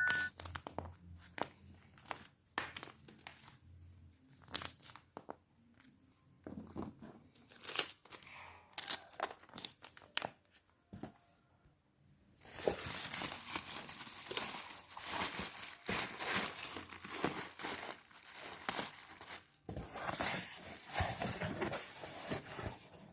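Plastic packaging being handled while an order is packed. Scattered crackles and clicks come first, then about ten seconds of dense crinkling and rustling, broken by a short pause.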